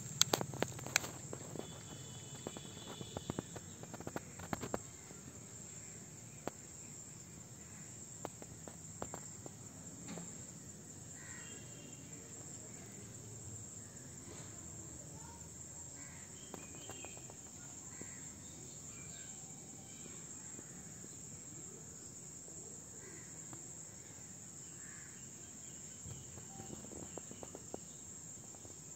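Steady, high-pitched trilling of crickets or similar insects, with a few faint chirps over it. A few sharp clicks and scuffs in the first five seconds.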